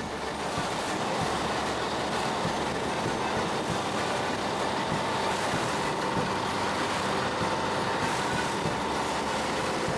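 Fishing boat's engine running steadily under way, with the bow wave rushing and splashing along the hull.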